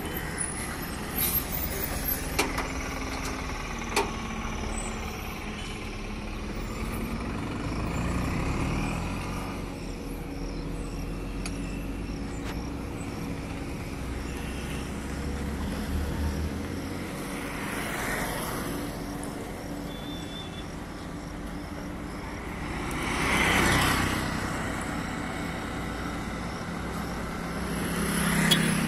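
Road traffic: motor vehicles passing one after another, each swelling up and fading over a second or two, over a low steady engine rumble. A few sharp metallic clinks of tools come in the first few seconds.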